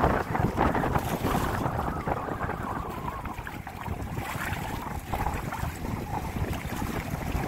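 Wind buffeting the microphone over water rushing and splashing along the hulls of a WindRider 17 trimaran under sail, unsteady throughout.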